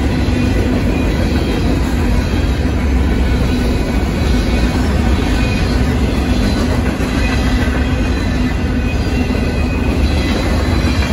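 Union Pacific freight train's boxcars rolling steadily past over a road crossing: a loud, continuous noise of steel wheels on the rails, heaviest in the low end.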